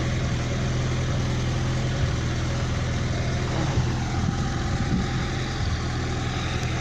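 Car running and driving, heard from inside the cabin: a steady engine and road drone with a few faint low knocks, which the owner puts down to the rear suspension.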